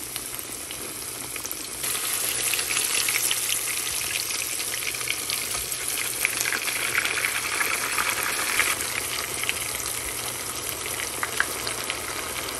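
Parmesan-breaded zucchini rounds shallow-frying in hot oil in a skillet: a steady sizzle full of small crackles and pops, which grows louder about two seconds in.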